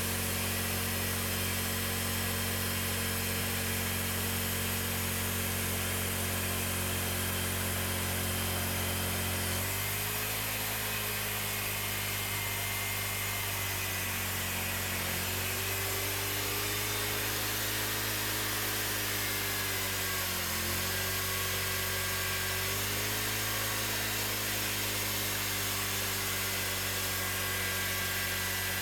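Cooks 3238 hydraulic band sawmill running and sawing a slab off a cherry log, a steady machine drone. From about ten seconds in, its pitch sags and recovers briefly several times.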